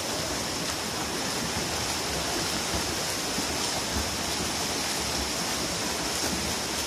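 Swimmers sprinting in a pool, a steady churning splash of water from their arm strokes and kicks.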